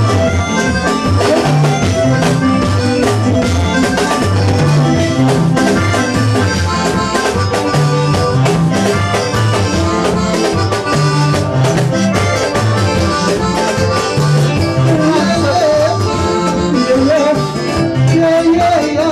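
Congolese gospel band playing an upbeat number: a deep bass line, drum kit and guitars. A voice comes in singing over it in the last few seconds.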